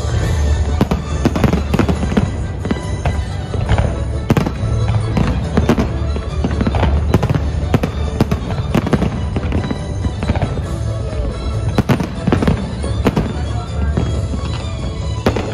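Aerial firework shells bursting one after another, with many sharp bangs and crackles, over loud music with a heavy bass.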